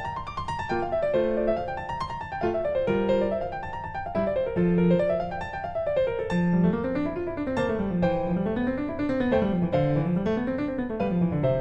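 Background piano music: a light melody over rippling broken chords that rise and fall in the bass.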